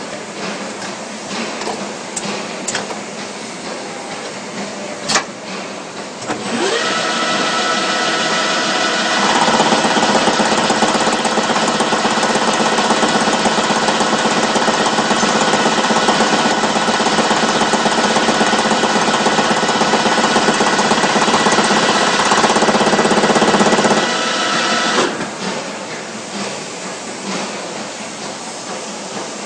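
CNC polygon lathe running a machining cycle: a steady mechanical noise with a few held tones starts about six and a half seconds in, grows louder a few seconds later and stops about 25 seconds in. It runs over a lower workshop machinery background, with a sharp click shortly before it starts.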